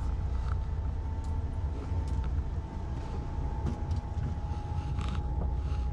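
Steady low rumble of a sportfishing boat running at idle on the open sea, with a thin steady whine over it that stops shortly before the end and a few light knocks.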